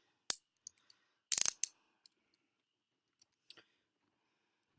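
Steel chain-link handcuffs being handled, clicking and clinking: a sharp click near the start, a quick run of metallic clicks about a second and a half in, then a few faint ticks.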